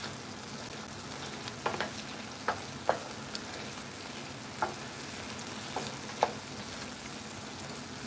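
Diced chicken and yellow peppers frying in a skillet with a steady sizzle, while a wooden spoon stirs them, scraping and knocking against the pan now and then.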